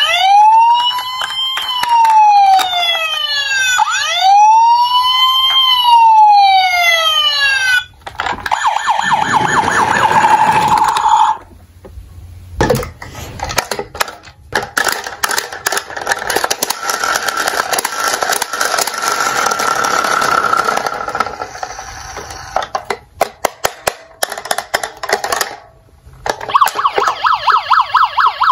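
Tonka Highway Patrol toy police car's electronic siren wailing slowly up and down twice, then switching to a quicker warbling tone. After a pause and a thump comes a stretch of clicking and rattling with a faint electronic tone, and near the end a fast warbling toy siren starts.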